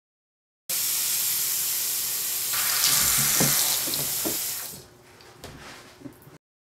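Bathroom sink faucet running steadily into the basin, then turned off about four seconds in; a few faint splashes follow.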